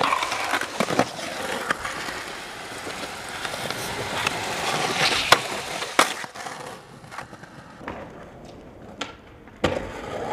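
Skateboard wheels rolling on concrete, with the board scraping along a park bench and several sharp clacks of the board hitting the ground, the loudest about five seconds in. It goes quieter for a few seconds before another sharp clack near the end.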